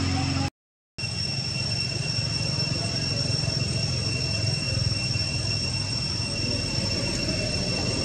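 Steady outdoor background drone: a low rumble with a constant high-pitched whine over it, cutting out completely for about half a second near the start.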